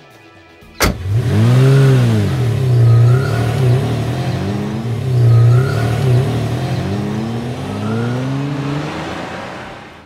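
A sharp click, then a car engine revving up and down several times and fading away near the end.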